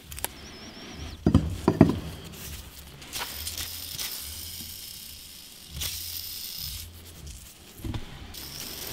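Metal engine parts being handled: a removed crankshaft ball bearing and an aluminium crankcase half. Two knocks a little over a second in, then several seconds of steady scraping.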